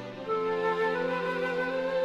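Background music: a slow, gentle melody of long held notes over a sustained low tone, with a new phrase entering about a third of a second in.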